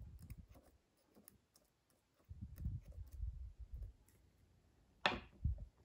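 Quiet handling noises and small clicks as a needle-tip oiler is worked over a folding-knife handle and its pivot bearings on a rubber mat. A soft low rumble comes about two seconds in, and a sharper click comes about five seconds in.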